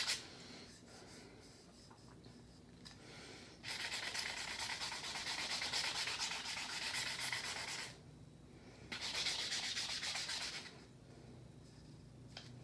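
Sandpaper rubbed over an epoxy-coated tumbler, sanding imperfections out of a decal: two spells of scratchy sanding, the first about four seconds long starting a little under four seconds in, the second about two seconds long starting near nine seconds in.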